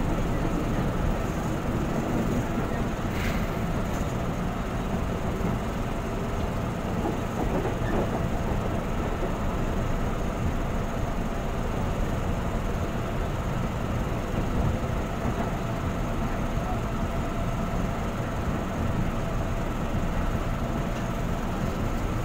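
Cabin running noise of a KRL commuter electric train, an ex-JR 205 series, rolling steadily along the track, with a faint steady hum and a brief click about three seconds in.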